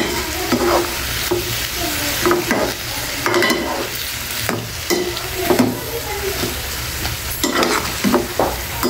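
A perforated steel ladle stirs and tosses noodles and vegetables in a stainless-steel pan, scraping and clinking against the metal at irregular intervals, over a steady sizzle from the pan.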